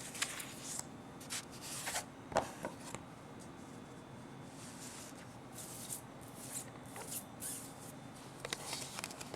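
Hands handling small parts and packaging: scattered soft rustles and light clicks, with a louder knock about two and a half seconds in and a burst of small clicks near the end.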